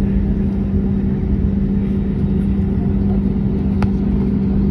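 Airbus A321neo jet engines heard from inside the cabin, a steady hum with a strong low drone, at taxi power as the airliner turns onto the runway. A single brief click sounds about four seconds in.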